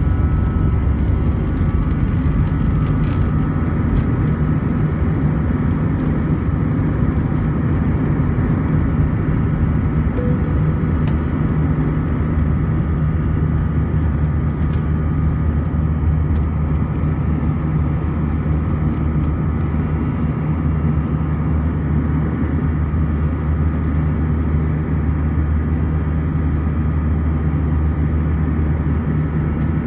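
Airbus A320-200 jet engines at takeoff thrust, heard from a cabin window seat over the wing as a loud, steady drone with a low hum. In the first seconds the wheels rumble and bump on the runway. After liftoff only the smoother engine and airflow noise remains.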